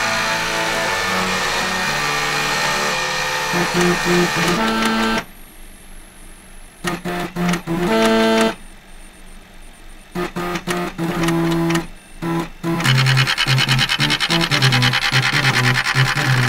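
Floppy disk drives and stepper motors playing a tune, their head-stepping motors buzzing out steady pitched notes in several voices. About five seconds in the texture drops to sparse short staccato notes, and the full buzzing chords come back about thirteen seconds in.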